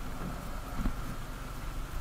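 Motorcycle engine running at low speed on a rough gravel track, with wind noise on the camera microphone and a few irregular knocks as the bike jolts over stones.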